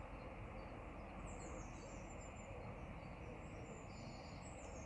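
Faint birdsong from the lakeside trees, short high chirps and trills starting about a second in, over a steady background hiss.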